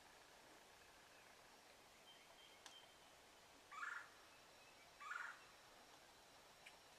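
Wild turkey gobbling twice, two short gobbles a little over a second apart, over near silence.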